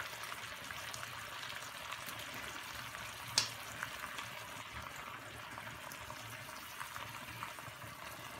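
Chicken breast fillets sizzling gently in a frying pan, bubbling in the water they have released, with small crackles throughout. A single sharp click about three and a half seconds in.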